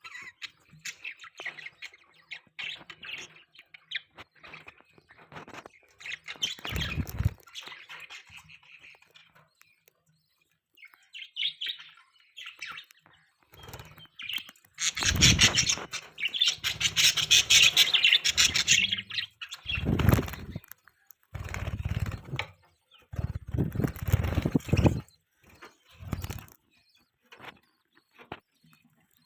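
Budgerigars chirping and chattering in irregular bursts. Several louder, fuller bursts come in the second half.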